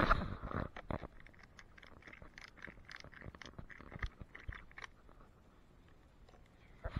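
Snowboard binding straps being handled: a knock at the start, then a run of small irregular clicks and scrapes from the plastic ratchet buckles and straps, falling quiet about five seconds in.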